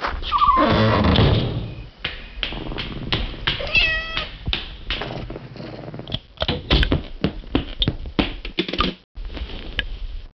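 A fast run of knocks and thumps, with a heavy low rumble in the first two seconds and a single cat meow about four seconds in.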